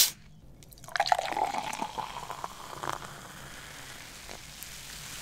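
A sugar-free drink being poured into a glass: the pour starts about a second in, its pitch rising slightly as the glass fills, then gives way to a steady hiss.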